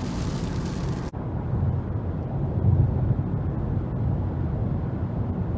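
Road noise inside a moving car. For about the first second a bright hiss of tyres on a wet highway, then a sudden cut to a duller, steady low rumble of tyres and engine.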